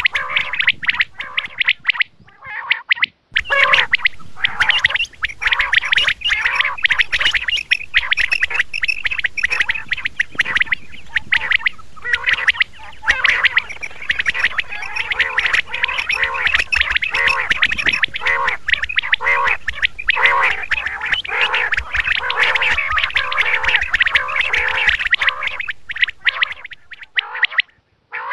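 Common quail calling over and over in a dense, continuous run of short calls, broken by a brief gap about two seconds in and another near the end.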